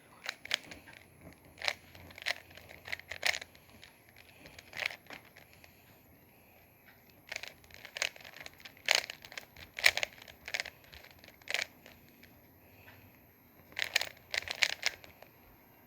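Rubik's Cube layers being twisted fast while solving it: sharp plastic clicks and clacks in irregular clusters, with two short lulls.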